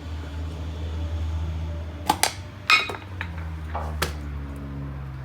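Metal clinks and knocks from a wheel bearing being worked in a grease bearing packer: two sharp clinks about two seconds in, a louder rattling clatter just after, and one more knock about four seconds in, over a steady low hum.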